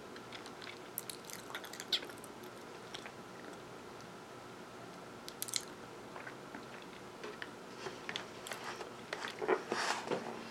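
Close-miked chewing of a mouthful of sesame-topped baked roll with the mouth closed: soft wet mouth clicks and light crunches. About nine and a half seconds in there is a short louder crackling as the plastic food tray is handled.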